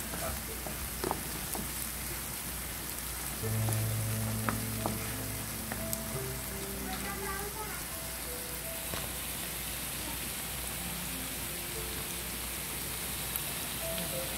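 Diced onions and tomatoes sizzling steadily in hot oil in a frying pan, with a few light clicks of a wooden spoon stirring against the pan.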